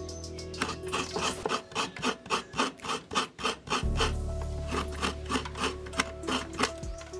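Coconut meat being grated on a kudkuran, a serrated metal blade bolted to a wooden stool: a coconut half scraped against the teeth in quick, even strokes, about four a second, starting about half a second in.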